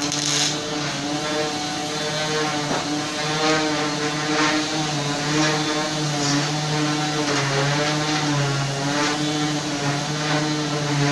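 Steady droning hum of running shop machinery, with short bursts of MIG welding arc crackle, the strongest right at the start.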